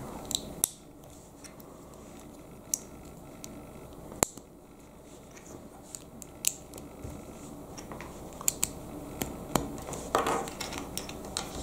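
Plastic Lego bricks clicking as they are pressed together and handled: a series of sharp, irregular clicks, the loudest about four seconds in, with soft handling noise between.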